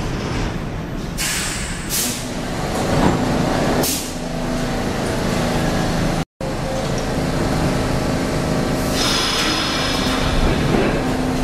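New York City subway train standing at the platform: several short bursts of compressed air hissing from its brakes and door gear over a steady rumble. Near the end, a whine begins to rise as the train starts to move off.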